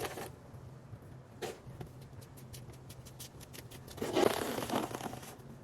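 Snow shovel scraping and pushing through snow, with light crunching clicks and a louder scrape about four seconds in.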